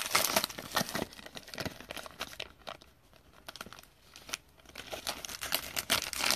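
Wrapper of a pack of baseball cards crinkling as it is torn open and the cards are slid out. The crackling comes and goes, with a quieter spell about three seconds in.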